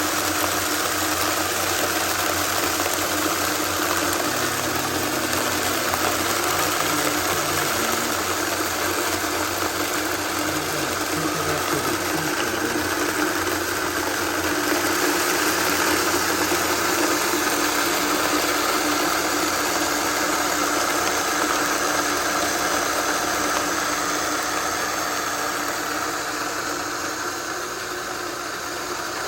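Vitamix blender motor running steadily, grinding a load of whole coffee beans into fine grounds: a loud, continuous whirring grind.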